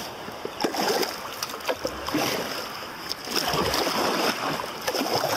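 Kayak paddle strokes in river water: repeated dips and splashes.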